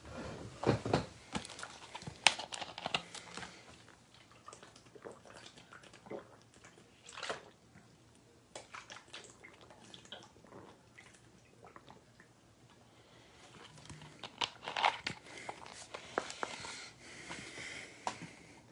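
Scattered clicks, taps and rustling in a small room, with a few sharper knocks among them.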